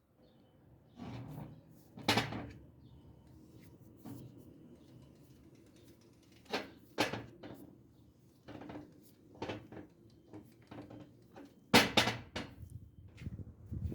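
A run of irregular knocks and clatters, like things being handled and set down. Sharp ones come about two seconds in, around seven seconds in and, loudest, near the end.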